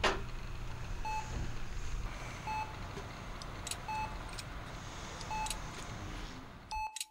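Electronic monitor beeping in an operating-room scene: five short, even beeps about a second and a half apart, over a steady low hum. It cuts off abruptly near the end.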